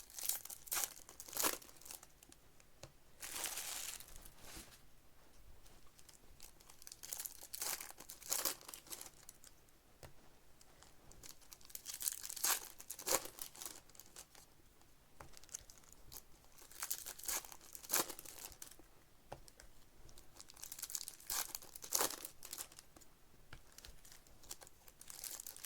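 Trading card pack wrappers being torn open and crinkled by hand, in short bursts every four to five seconds.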